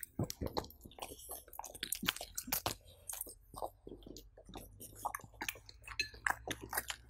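French bulldog biting and chewing pieces of pumpkin and cheesecake taken off a fork, many quick irregular chews one after another.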